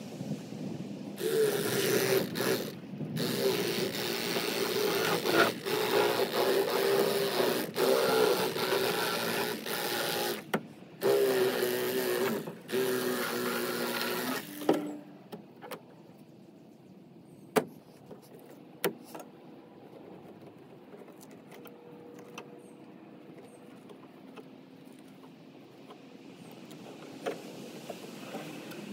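Cordless electric fillet knife running as it cuts through a bluegill. Its motor buzzes steadily with a slightly wavering pitch and cuts out briefly a few times, then stops about halfway through. A few light ticks follow.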